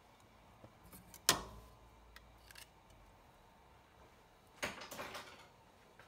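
Sharp clicks and knocks of a metal garlic press being handled and tapped, the loudest about a second in, followed by a short clatter of handling near the end.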